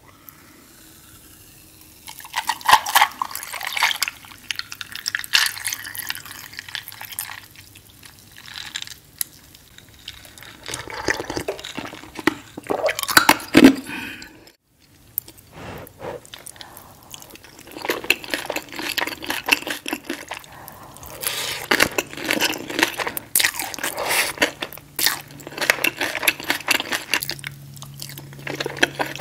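Close-miked wet, sticky food sounds: ketchup squeezed from a bottle onto a breakfast plate, with a fork working through the eggs and hash browns. It comes as dense clusters of crackles and squelches, with a short break about halfway.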